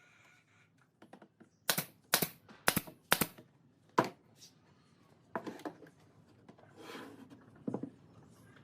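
Sharp knocks in quick succession: four about half a second apart, a fifth a moment later, then a few softer knocks and a brief rustle near the end.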